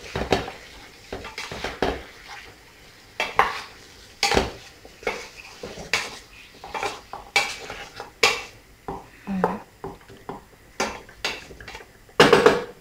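A spatula scraping and knocking against the inside of a stainless steel cocotte as lamb pieces are stirred and turned in oil and spices. The strokes come irregularly, with the loudest clatter near the end.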